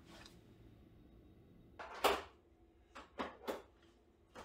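Handling noises in a small workshop: one short, loud knock with a scrape about two seconds in, then three or four lighter clicks and knocks, like a case or drawer being opened and things set down.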